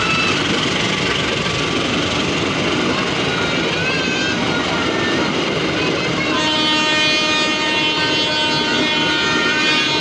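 Passenger coaches of the KA Bukit Serelo train rolling slowly past on the rails, with steady wheel and rail noise and a few wavering high squeals. About six seconds in, a steady many-toned horn-like sound starts and holds.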